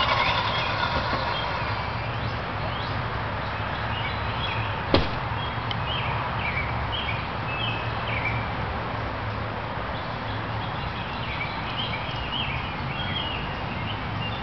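Outdoor ambience: a steady hiss of distant traffic, with small birds chirping in short, repeated calls from about two seconds in. One sharp click about five seconds in.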